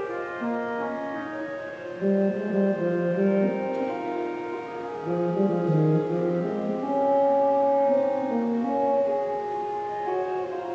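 Slow instrumental music: sustained, overlapping chords over a moving lower line.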